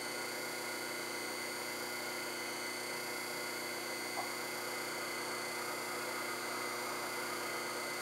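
Taig benchtop lathe running steadily, a constant motor hum and whine with several fixed tones, with one light click about four seconds in.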